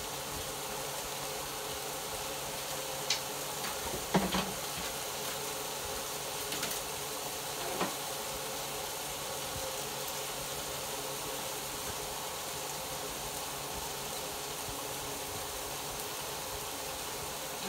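Green beans frying in an open skillet: a steady sizzle with a few sharp pops and crackles, the loudest about four seconds in.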